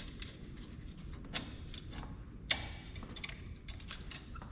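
Hand tools clicking and clinking against the steel steering knuckle of a truck's front suspension as a wrench works a nut held with locking pliers. Two sharper metallic clicks stand out, about a second and a half and two and a half seconds in, over a low steady hum.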